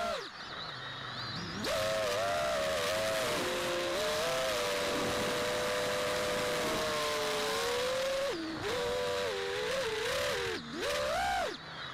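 Brushless motors and propellers of an Armattan Rooster FPV quadcopter, recorded by its onboard camera: a whine that rises and falls with the throttle over the rush of the props. The pitch drops and the sound dips briefly just after the start and twice near the end as the throttle is chopped.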